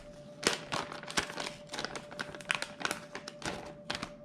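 Plastic bait bag crinkling and rustling as a soft plastic creature bait is pulled out of it, a string of irregular crackles.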